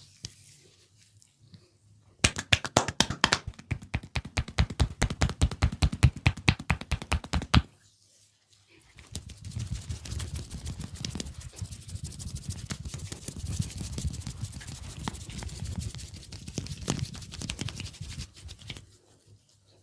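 Hands tapping a head in a fast, even rhythm for about five seconds during a head massage, then fingers scratching and rubbing through hair for about ten seconds.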